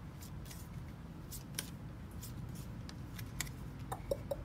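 Playing cards being handled and laid on a tabletop: a scatter of light clicks and taps, several in quick succession near the end, over a low steady room hum.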